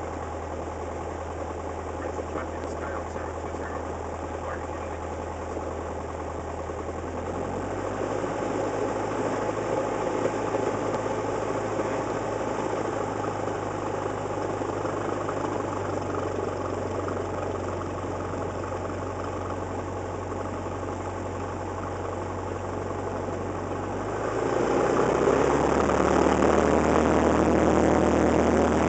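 Cessna 172's piston engine and propeller, heard from inside the cockpit, running steadily at low power while taxiing, with a slight change in tone about eight seconds in. About 24 seconds in the throttle is opened to full power for the takeoff roll: the engine gets suddenly louder and rises in pitch, then holds there.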